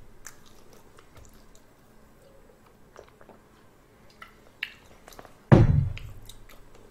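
Faint mouth clicks and gulps from drinking out of a glass. About five and a half seconds in comes one loud, deep thump as the drinking glass is set down on the table.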